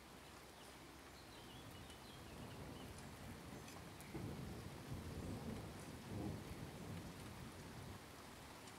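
Chef's knife slicing through cooked pork belly onto a plastic cutting board: muffled, low cutting and pressing sounds that build up, with two louder strokes about four and six seconds in.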